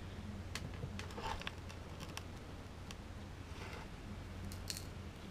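Faint scattered clicks and short rustles of a clear plastic tray of loose firework stars being handled on a tabletop, over a steady low hum.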